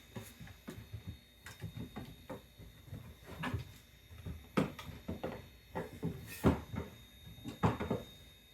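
Irregular clicks and knocks of RC crawler course pieces being handled and fitted together, the loudest coming about four and a half, six and a half and seven and a half seconds in.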